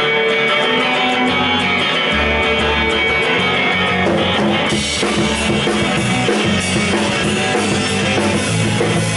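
Live rock band playing an instrumental intro on electric guitars, bass and drums. The low bass comes in about a second in, and the full band with cymbals crashes in about five seconds in.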